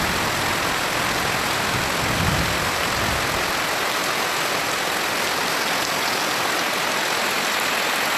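Heavy rain falling steadily on bare earth and puddles, a dense even hiss, with a brief low rumble about two seconds in.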